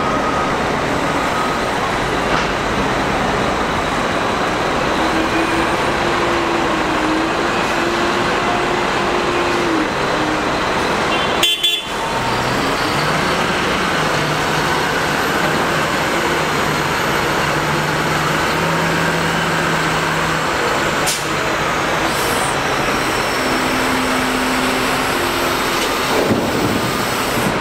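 Caterpillar 972M wheel loader's diesel engine working under load, its note stepping up and down in pitch as the loader digs and lifts, over a steady mechanical din. One brief, abrupt break comes about twelve seconds in.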